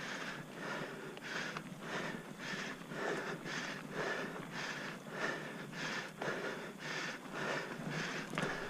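A cyclist's heavy, rapid panting from the effort of riding up a steep hill, about two to three hard breaths a second in an even rhythm.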